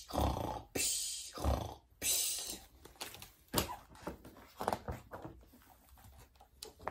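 Imitated snoring: about four loud, breathy snores in the first three seconds, then fainter scattered clicks and knocks.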